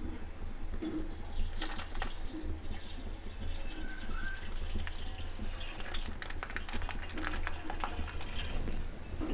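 Refined cooking oil pouring in a steady thin stream from a plastic pouch into a steel kadhai, trickling and splashing into the oil already in the pan. Occasional crackles of the plastic pouch in the hand.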